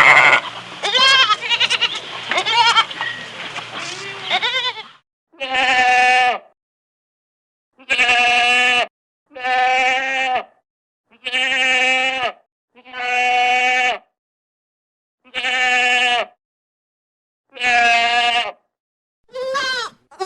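Goats bleating. For the first few seconds several calls overlap over a background hiss. Then comes a run of separate bleats, each about a second long, with silence between them, ending in two shorter calls.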